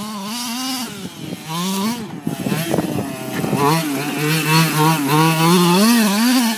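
Losi 5ive T 1/5-scale RC truck's small two-stroke petrol engine revving up and down as it is driven hard, its pitch climbing and dropping repeatedly with a short lift off the throttle about two seconds in.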